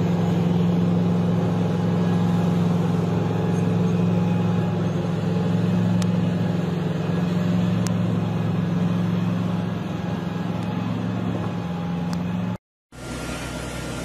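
Heavy diesel engine of a mining haul truck running with a steady low drone as it drives past. The sound cuts out about twelve and a half seconds in and gives way to a quieter steady hum.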